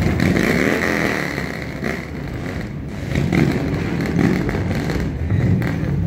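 Engines of passing vehicles running, a steady motor rumble.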